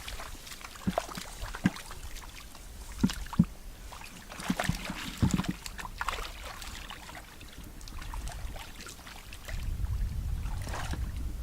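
Water sloshing and splashing, with scattered short knocks, as someone works by hand in shallow water. A low rumble rises in the last couple of seconds.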